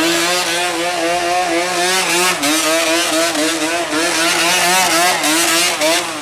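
Yamaha Banshee ATV's two-stroke twin engine revved during warm-up and held at high revs, its pitch wavering up and down with the throttle, then dropping away right at the end.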